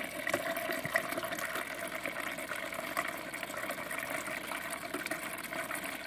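Water from a Samsung refrigerator's door dispenser running steadily into a bowl as a new water filter is flushed. The stream is flowing smoother now that the air has been worked out of the line after the filter change.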